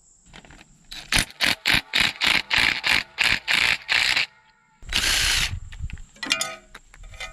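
Cordless impact wrench working on a connecting-rod cap nut of a Ford big-block V8, with a run of short hammering bursts at about four a second for some three seconds. A longer burst follows about five seconds in.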